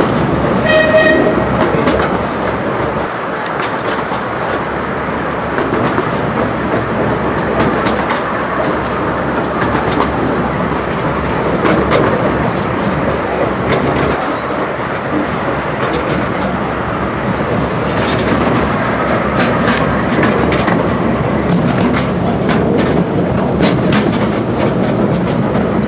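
A 15-inch gauge miniature train heard from its open carriage: a steady rumble as it runs, with the wheels clicking over rail joints, including a cluster of clicks near the end. A brief high tone sounds about a second in.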